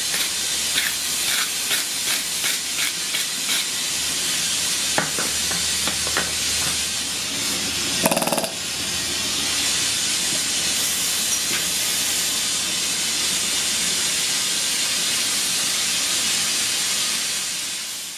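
Steady loud hiss, with scattered ticks and knocks in the first few seconds and a brief louder clatter about eight seconds in.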